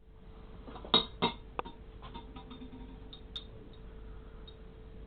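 A few sharp knocks and clicks about a second in, the first the loudest, followed by lighter scattered ticks over a faint steady hum.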